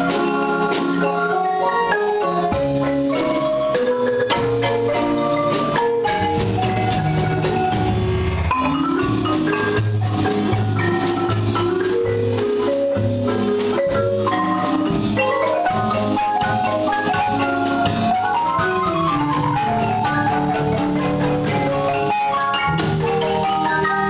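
Guatemalan marimba ensemble playing a lively piece, several players striking the wooden bars of a large marimba with mallets in fast runs, over a moving bass line and drum kit.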